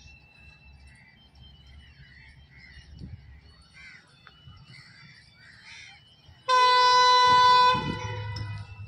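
Faint scattered chirps, then about six and a half seconds in a single loud, steady train horn blast that lasts just over a second and trails off.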